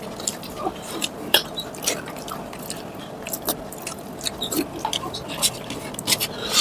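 Close-up eating sounds of chewing and hand-mixing chicken curry and rice: irregular short mouth clicks and smacks, about two a second.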